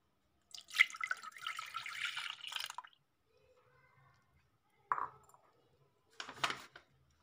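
Milk poured into an empty stainless steel saucepan, a splashing pour lasting about two seconds. Two short knocks follow near the end.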